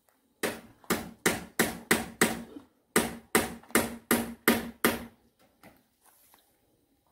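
A metal utensil knocking on a metal cooking pan in two quick runs of about six strikes each, roughly two or three a second. Each knock rings briefly.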